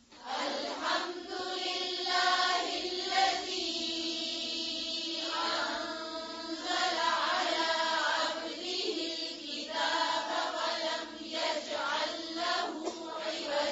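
Quranic recitation in a melodic, chanted voice, drawn out in long phrases with held notes.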